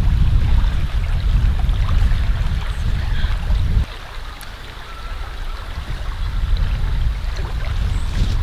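Wind buffeting the microphone as a loud low rumble. It cuts off abruptly about four seconds in and then gradually builds back up.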